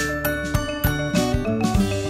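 Background music with a steady beat of about two strokes a second under sustained pitched notes.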